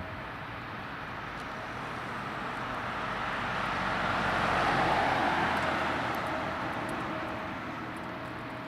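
A vehicle passing by: a broad rush of engine and tyre noise that swells to a peak about five seconds in and fades again, over a faint steady tone.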